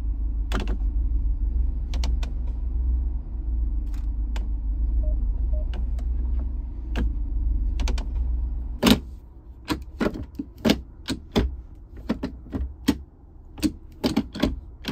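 Jeep Wrangler's automatic gear selector being moved through its positions with the engine idling: a steady low hum with a few soft clicks. About nine seconds in the idle hum falls away and a quick run of sharper plastic clicks and clunks follows as the Ford Bronco's shifter is worked back and forth, a sound its owner calls clunky and hollow.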